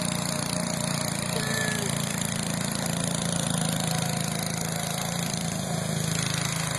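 Small gas engine of a go-kart running at a steady pace as the kart drives.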